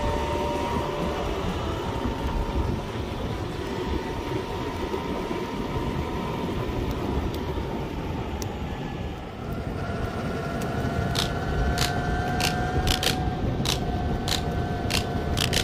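Electric skateboard rolling fast over asphalt: a steady rumble of the wheels on the road, with wind, and a thin motor whine that drops in pitch about halfway through. From about two-thirds of the way in, a run of sharp clicks joins it.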